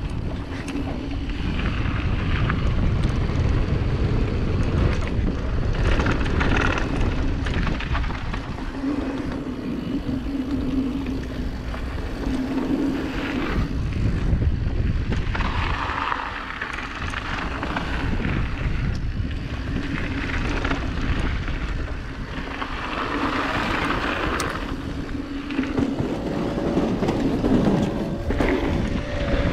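Wind buffeting an action camera's microphone during a fast mountain-bike descent, a continuous rumbling rush that swells and eases, with the YT Capra Uncaged 9's tyres crunching over a loose gravel trail.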